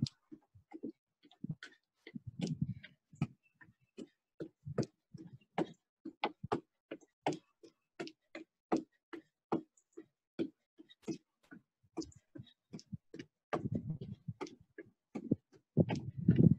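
Feet landing on wooden deck boards during jumping jacks: a steady run of sharp thuds, about two a second.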